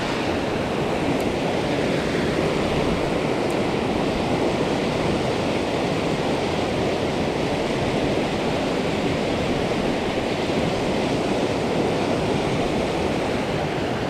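Mountain stream rushing over boulders in white-water rapids, a steady, unbroken roar of water; the river is running high after continued rain.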